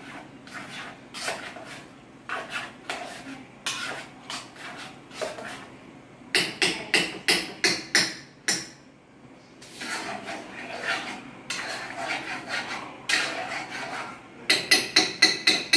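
A metal utensil clanking and scraping against a cooking pot on the stove, with two quick runs of sharp strikes, about four to six a second, partway through and near the end.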